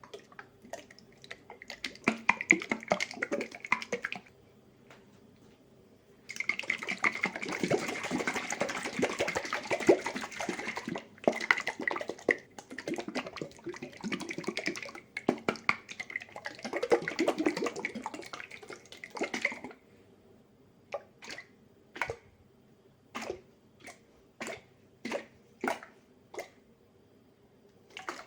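A glass jar of tomato frito (thick fried tomato sauce) being shaken by hand, the sauce sloshing against the glass. There is a short bout of continuous shaking, then a long one, then a string of single, separate shakes near the end.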